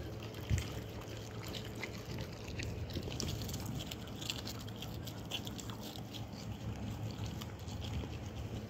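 Dog chewing a dried cuttlefish snack: irregular quick clicks and small crunches, several a second, over a steady low hum.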